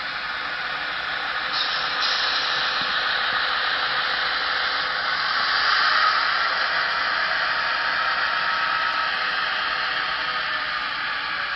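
N scale model freight train rolling past close by: a steady hissing rush of small wheels running on the rails, swelling a little about halfway through.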